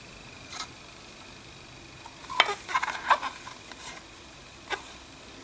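Hands handling a large coin in its clear plastic capsule over a cardboard box with packing paper: a scatter of short clicks and crinkles, busiest between about two and three and a half seconds in, with single clicks before and after.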